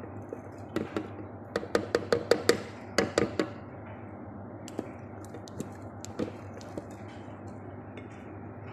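Metal utensil clinking against a glass bowl while stirring grated parmesan cheese: a quick run of about a dozen clinks in the first three and a half seconds, then a few scattered lighter taps.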